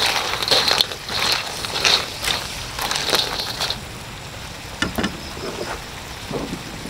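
Spatula stirring whole crabs and prawns in a wok, shells scraping and clattering against the pan in short strokes about twice a second. The stirring stops about three and a half seconds in, leaving only a few light clicks.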